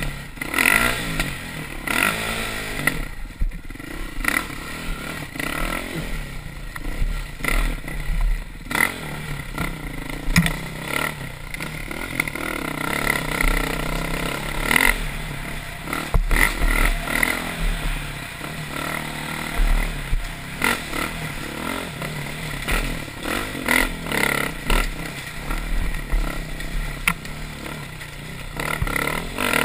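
KTM dirt bike engine revving up and down over and over as the bike climbs a rocky singletrack, with frequent clatter and knocks from the rocks and brush scraping against the bike.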